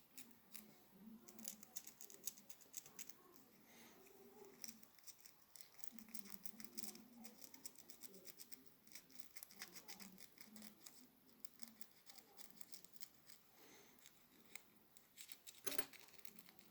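Faint, rapid small clicks and scrapes of small parts being handled by hand, with one sharper click near the end.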